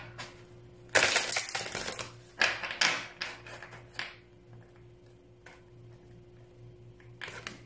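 A deck of oracle cards being shuffled by hand. A dense run of rapid card flicks lasts about a second and a half, then comes a few shorter bursts, settling to quiet handling with a few light taps near the end.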